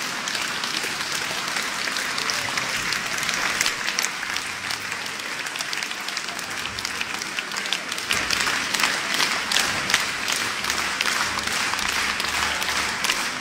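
Concert audience applauding: a dense, sustained ovation of many hands clapping, growing a little louder and crisper about two-thirds of the way through.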